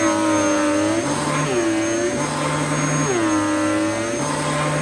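Dyson DC07 Origin upright vacuum cleaner running, its motor pitch dipping and swinging back up about every one and a half seconds as the cleaner works over a mess in repeated strokes.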